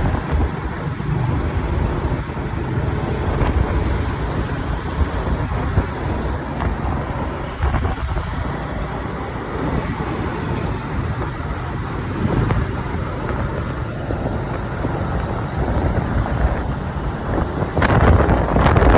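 Steady road and wind noise from a moving vehicle, with wind buffeting the microphone and a few louder gusts near the end.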